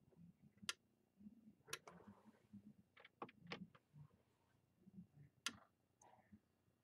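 Near silence broken by a few faint, irregular clicks and ticks.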